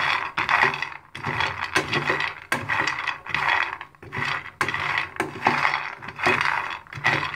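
Raw peanuts being stirred with a flat metal spatula in a metal pan as they dry-roast on a gas cooker: the nuts rattle and clatter against the metal, and the spatula scrapes, in repeated strokes about one a second.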